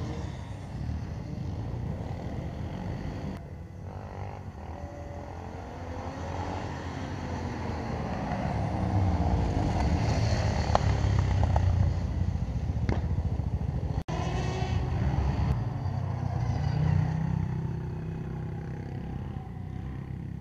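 Quad bike engines buzzing as they lap a track, their pitch rising and falling with the throttle through corners and straights. The sound cuts out abruptly for an instant about fourteen seconds in.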